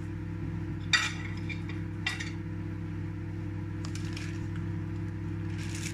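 A couple of sharp clinks of dishes being handled, about one and two seconds in, with fainter clinks later, over a steady low hum.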